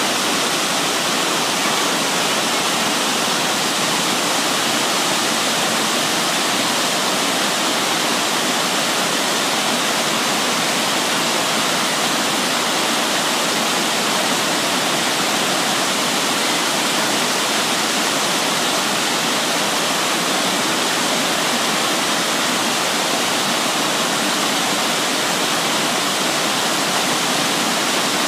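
A small waterfall and mountain stream rushing steadily into a rocky pool.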